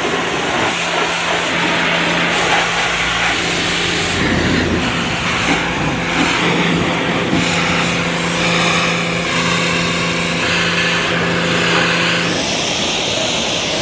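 Pressure washer spraying water onto a pickup truck's paint: a steady hissing spray over a low hum that cuts off near the end.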